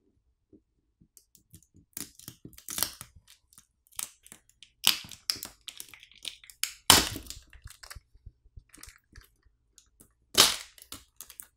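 Plastic crackling and snapping as the phone's battery is pulled free on its plastic pull pouch, the adhesive underneath letting go. It is a run of small crackles with a few loud, sharp cracks spaced a couple of seconds apart.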